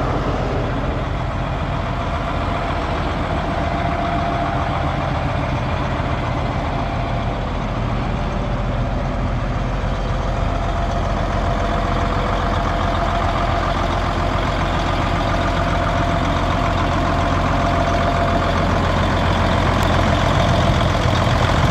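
Case 1370 Agri King tractor's six-cylinder diesel engine idling steadily, getting a little louder near the end.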